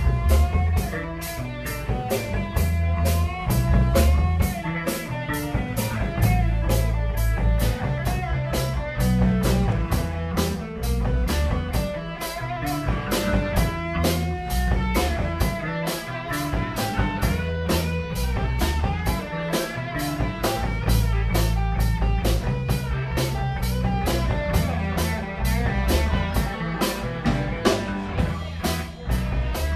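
Live band playing: electric guitars over a drum kit keeping a steady beat, with cymbal hits at even spacing.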